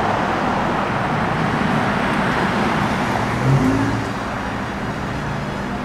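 City street traffic: a steady noise of cars going by, easing off about four seconds in, with a low engine hum near the middle.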